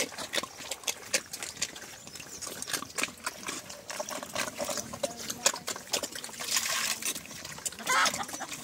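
Pigs eating soft, wet feed from a trough: a steady run of wet slurping and chewing clicks, with no squealing.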